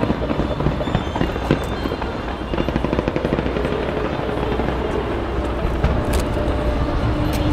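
Fireworks going off in a dense run of rapid crackling pops, with music playing underneath.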